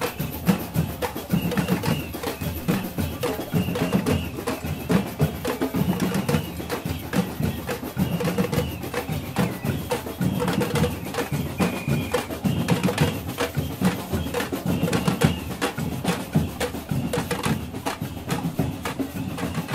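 Batucada street drumming: surdo bass drums and smaller hand-held drums struck with sticks in a dense, driving rhythm, with short high tones sounding over it now and then.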